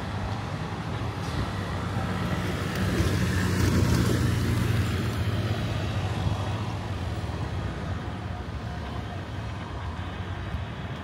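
Street traffic: a motor vehicle passing, loudest about four seconds in, then fading into steady low traffic noise.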